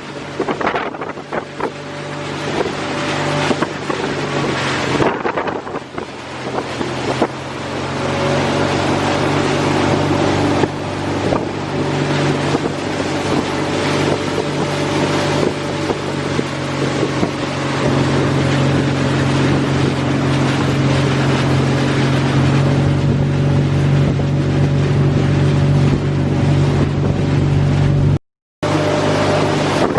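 Motorboat engine running under way, a steady drone that grows gradually louder, with wind buffeting the microphone.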